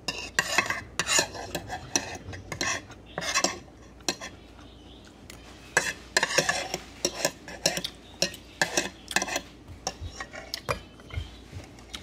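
Metal spoon and fork clinking and scraping against a porcelain plate, scooping up the last of the food, in short clusters of clicks and scrapes with brief pauses between.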